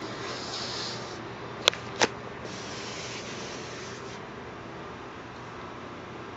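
A hand rubbing and tapping on an aircraft's dark skin: brushing noise in two stretches, and two sharp taps about a third of a second apart near the two-second mark.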